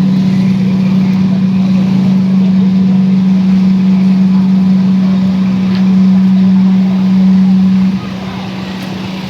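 Large outdoor sound system playing a loud, steady low bass tone that cuts off about eight seconds in, leaving a noisy hiss.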